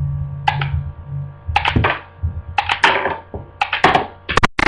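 Lego rubber-band gun fired again and again at small standing targets: sharp plastic clacks in small groups about once a second as the shots go off and the targets are knocked down.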